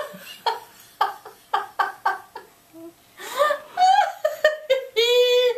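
Women laughing: a quick run of short breathy chuckles, a brief pause, then louder voiced laughter ending in a held high-pitched cry near the end.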